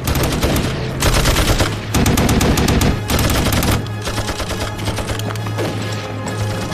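Rapid automatic and rifle gunfire, a dense rattle of shots that is heaviest for the first four seconds and then thins out.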